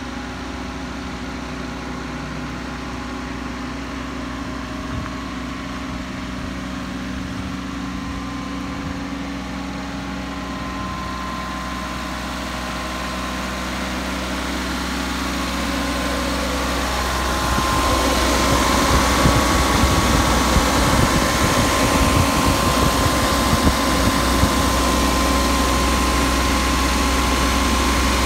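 Mitsubishi Minicab kei truck's small three-cylinder under-seat engine idling steadily. It grows louder and closer about two-thirds of the way through, with a steady whine added.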